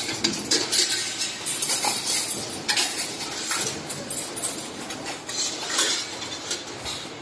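Automatic 2D wire-bending and butt-welding machine at work. It makes an irregular run of metallic clinks and clanks with short hissy bursts in between, several a second.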